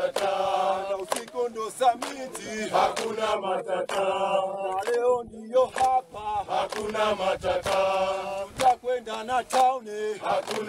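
A large group of men singing together in unison, with hand claps.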